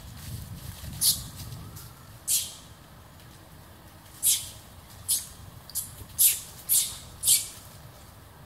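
Baby long-tailed macaque giving short, shrill distress screams while an adult monkey grabs and drags it. There are about eight cries, spaced out at first and then coming about twice a second in the second half.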